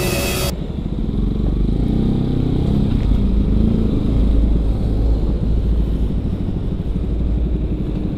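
Yamaha R15's single-cylinder engine with an aftermarket Ronin Black Katana racing exhaust running at low revs, a steady low, rapid exhaust beat as the bike idles and creeps forward. Background music cuts off about half a second in.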